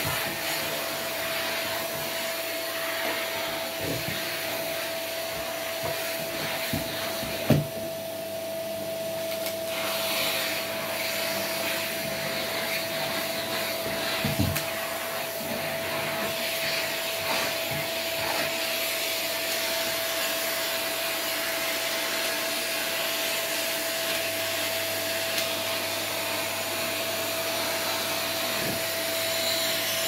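Canister vacuum cleaner running steadily with a constant whine, its hose nozzle working over a fabric armchair's upholstery. The suction hiss dips for about two seconds around eight seconds in, and there are two sharp knocks, at about seven and fourteen seconds.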